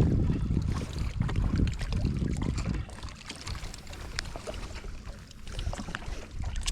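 Choppy low rumbling noise of wind and water around an open fishing boat for about the first three seconds, then quieter with scattered small clicks and knocks.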